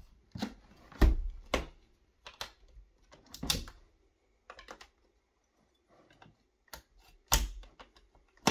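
A uPVC window bead being levered off the frame with a putty knife: a run of sharp, irregular plastic clicks and snaps as the bead comes away, loudest about a second in and again near the end.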